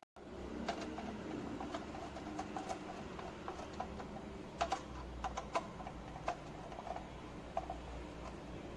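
Hand screwdriver turning screws into the sheet-metal case of a Hikvision DVR. It makes an irregular run of light metallic clicks and ticks, with a few louder clicks around the middle.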